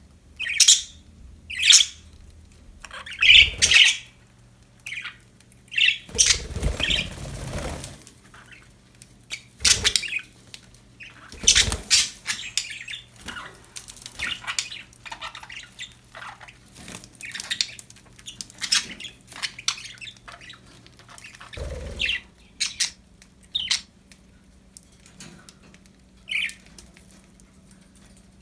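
Pet budgerigars chirping and squawking in short, sharp calls, with a few louder rustling bursts such as wing flapping among them. A faint steady hum runs underneath and stops near the end.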